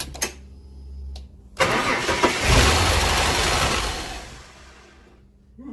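Ford EL Falcon straight-six cranked over by the starter. It catches about a second and a half in and runs loudly for a couple of seconds, then dies away. This is its first fire after a timing chain and distributor rebuild, run with the rocker cover off and no oil or coolant in it.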